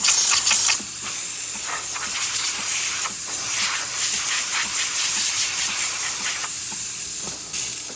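Breville Barista Express steam wand blowing steam with a steady hiss, loudest in the first second and easing off near the end, while the machine's water pump pulses underneath to feed the thermoblock. The steam is running at full pressure, working as it should.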